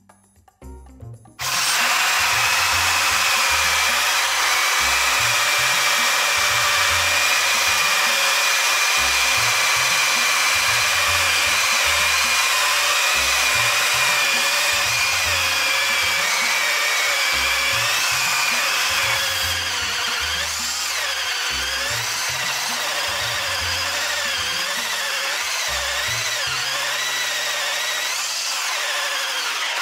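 Cordless drill-drivers boring holes in wood with a 44 mm hole saw: a loud, steady motor whine mixed with the grinding of the saw cutting, starting about a second and a half in. About two-thirds of the way through it drops a little quieter and the pitch begins wavering up and down.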